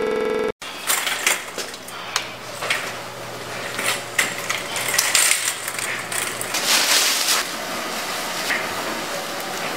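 A run of small clinks, clicks and rattles, like small hard objects being handled, over a faint steady low hum.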